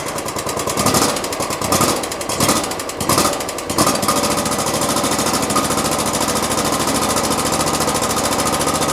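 27 hp Kohler V-twin engine on an Exmark zero-turn mower, just started and running unevenly for the first few seconds, then settling into steady running with a fast, even knocking. The owner calls it a nasty knock and fears the high-hour engine is worn out.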